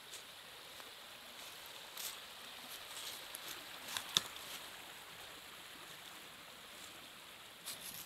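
Small forest brook running over stones, a steady soft rush, with a few footsteps crunching on dry leaves; the loudest is a sharp crack just after four seconds in.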